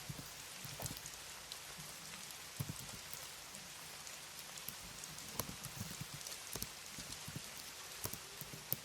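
Soft computer-keyboard typing, scattered irregular keystroke clicks, over a steady rain ambience.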